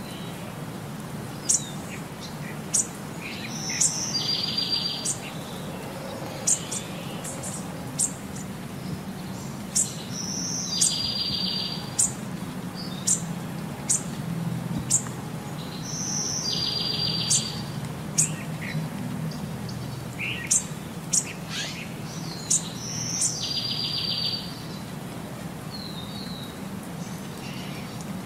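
Birdsong: short, sharp high chirps about every second or so, with a brief buzzy trill roughly every six and a half seconds, repeating in a regular cycle over a steady low hum.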